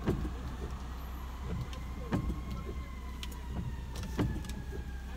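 Car engine idling, heard from inside the cabin as a steady low hum, with a faint high whine and a few light clicks.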